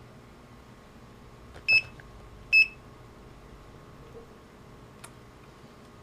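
Two short electronic beeps from a handheld digital multimeter, about a second apart, with a faint click a couple of seconds later.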